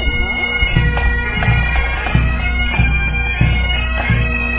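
Pipe band playing: Highland bagpipes with steady drones under the chanter's melody, and a low bass drum beat about every 0.7 seconds.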